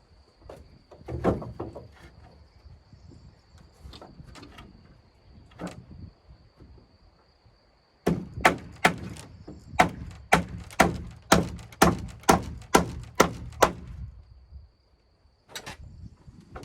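Hammering on wood during a timber hut build: a few scattered knocks, then a quick run of about fourteen even blows, a little over two a second, that stops near the end.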